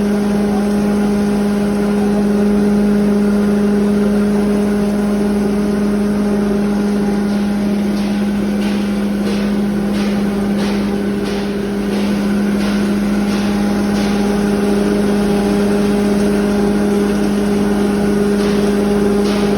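7.5 hp cattle feed grinder running with a steady, loud hum. A series of sharp knocks comes over it in the middle stretch and again briefly near the end.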